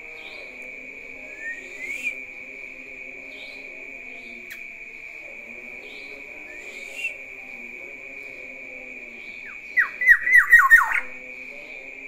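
Black-naped oriole giving two short rising whistled notes, then a loud, rapid run of sharp falling notes near the end. A steady high-pitched drone runs underneath.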